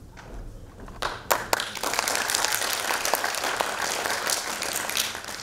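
Theatre audience applauding. A few separate claps come about a second in, then the applause fills out and holds before fading near the end.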